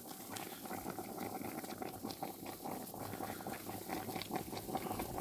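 Chicken broth boiling hard in an open cast-iron pot over a wood fire: steady dense bubbling with many small pops.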